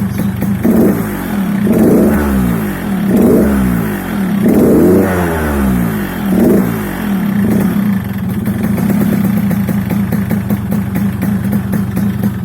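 Yamaha RX-King 135 cc two-stroke single blipped about six times over the first eight seconds, the pitch rising and falling with each rev, then settling back to a steady idle. It is heard through a gutted ('bobokan') exhaust whose stock muffler baffle has been split open.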